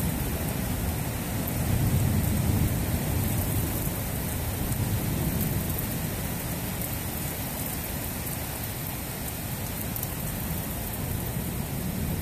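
Thunderstorm: steady heavy rain hissing, with a low roll of thunder that swells about two seconds in and then fades back into the rain.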